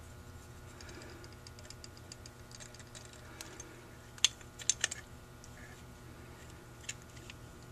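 Small clicks and taps of hands working a Holley 2280 two-barrel carburetor body while fitting its rubber float-bowl vent valve. The clicks are soft at first, with a few sharper ones about four to five seconds in and one near seven seconds, over a faint steady hum.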